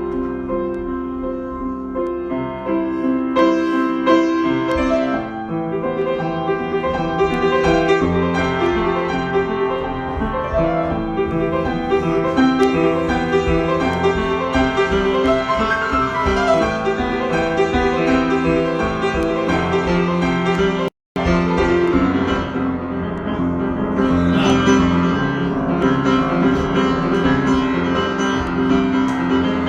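Solo piano improvisation, sustained chords and running notes without a break, except for a split-second dropout about two-thirds of the way through.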